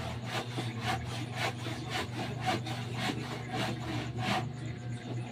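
Hand saw cutting wood: rhythmic rasping strokes, about two or three a second, stopping about four and a half seconds in. A steady low hum runs underneath.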